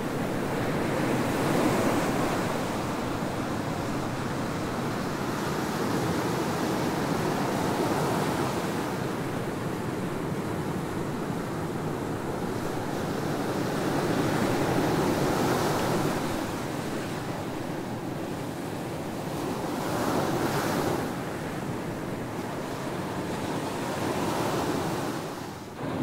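Ocean surf breaking on a sandy beach: a continuous wash of waves that swells and eases every several seconds as each wave breaks and runs up the sand.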